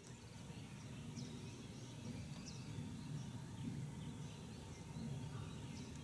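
Quiet outdoor ambience: a steady low rumble with a few faint, high bird chirps.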